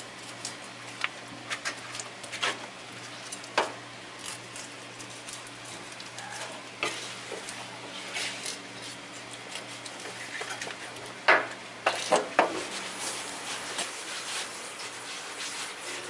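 Kitchen knife tapping and scraping on a cutting board while filleting a searobin, with irregular sharp taps throughout and the loudest cluster of knocks a little past the middle. A steady low hum runs underneath.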